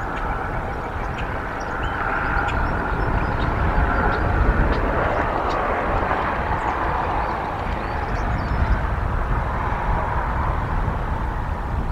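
Outdoor pond-side ambience from a wildlife camera: a steady low rumble and wavering hiss, with faint short high chirps scattered through.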